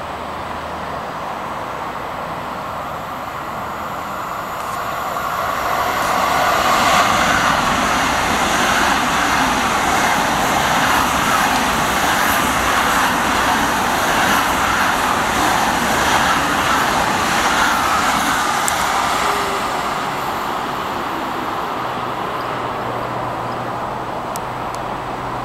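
ICE high-speed train passing close by: a rushing noise of wheels on rail and moving air that builds over a few seconds, stays loud for about twelve seconds, then fades away.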